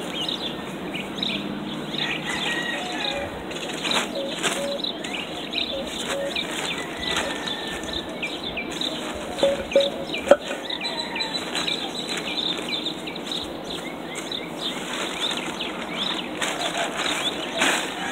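Small birds chirping over crinkling and rustling of plastic sheeting. Two sharp knocks about ten seconds in, as concrete edging blocks are set down on the plastic, are the loudest sounds.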